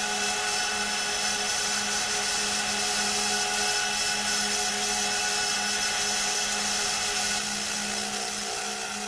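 A steady, machine-like drone of many held tones with a soft pulse underneath, sliding down in pitch and fading near the end.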